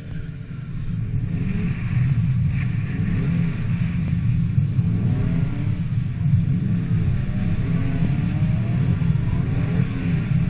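BMW straight-six engine revving hard under throttle as the car drifts round on wet tarmac. Its note climbs over the first couple of seconds, then rises and falls with the throttle.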